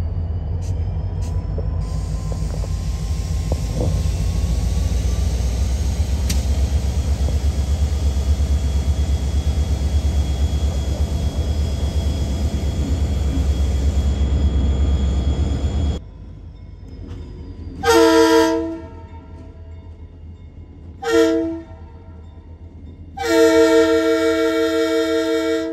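Lake State Railway EMD GP40-series diesel locomotives working, a deep steady engine drone. Then the lead locomotive's multi-note air horn sounds for a grade crossing: a long blast, a short one, and a final long blast held about two and a half seconds.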